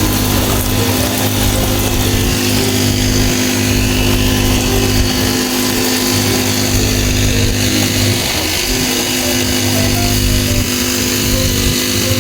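A small petrol engine running steadily at a constant speed with a dense, noisy drone.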